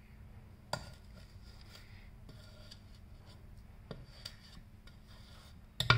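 Silicone spatula scraping buttercream off the sides of a steel mixing bowl: faint soft rubbing with a couple of light clicks, then a louder knock near the end.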